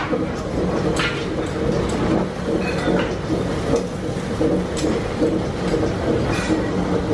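Metal spatula scraping and tapping on a large flat dosa griddle, with a few sharp clicks, over a steady loud rumble.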